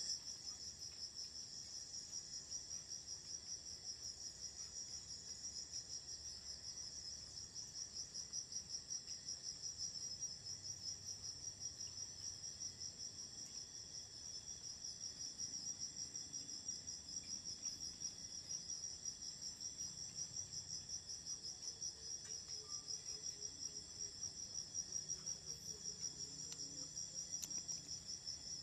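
Crickets chirping in a steady, high-pitched, rapidly pulsing night chorus.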